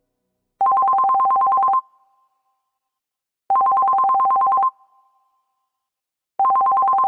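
A phone ringing with an electronic warbling two-tone ring, in bursts of about a second with pauses of nearly two seconds between them: two full rings, and a third starting near the end.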